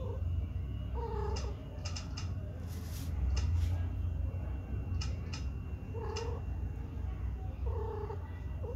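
Domestic cat giving short, low yowls, three or four times, with a few faint clicks between them.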